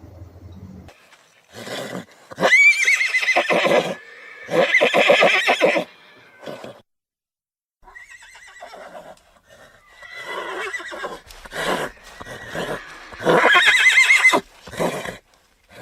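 Horse whinnying: several loud neighs with a high, wavering pitch, interspersed with shorter snorts, the strongest calls near the start and again near the end.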